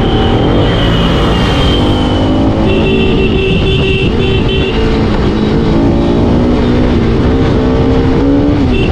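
Motorcycle engine running while riding along, its pitch rising and falling gently, with heavy wind rumble on the microphone.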